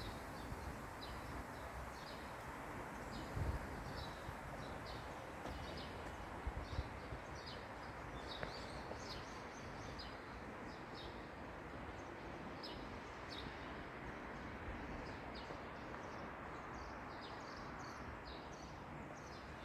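A small bird chirping over and over, short high chirps about once or twice a second, over a steady outdoor background hiss. A couple of soft low thumps come a few seconds in.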